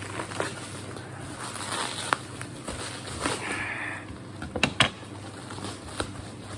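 A parcel being handled and opened: scattered rustles, scrapes and sharp clicks, with a short scratchy tearing or scraping sound about three seconds in and a few loud clicks just before five seconds.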